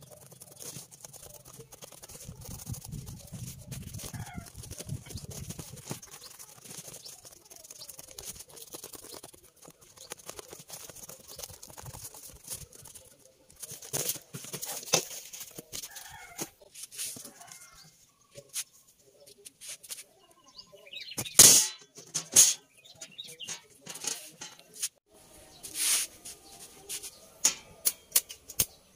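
Cardboard sheet being handled and flexed, with hens clucking in the background and several sharp knocks in the later part.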